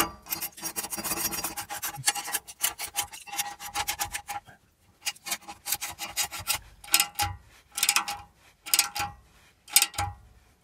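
Ratcheting box-end wrench clicking in quick rasping runs as it tightens the locking nuts on a Timbren helper-spring bracket, in several bursts with short pauses between strokes.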